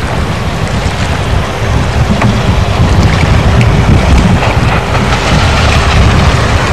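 Small motorboat's engine running as it speeds across the lake, under a heavy, uneven rumble of wind on the microphone.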